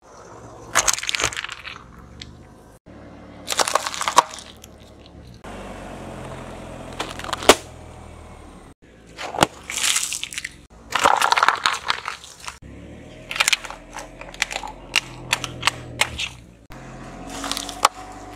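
A car tyre rolling onto and crushing a series of objects in separate bursts: glass nail-polish bottles cracking, and crunchy snacks crunching and crackling. Among the bursts are one sharp crack and a run of quick snaps.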